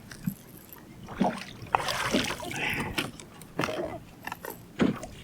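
A hooked blue catfish splashing at the water's surface beside a boat, with a splashy rush about two seconds in and several knocks and thumps against the boat.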